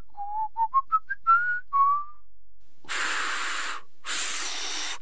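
An adult whistling a short tune in quick, clear notes that step up and down. Then a child blows two breathy puffs of air, each about a second long, with no note in them: failed attempts to whistle.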